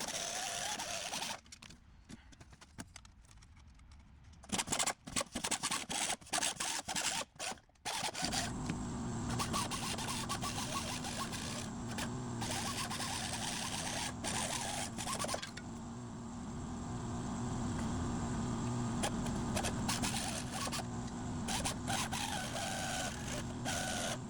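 Pneumatic sheet metal shears cutting sheet steel: short bursts of cutting broken by pauses, then a longer steady run with a steady hum from about eight seconds in.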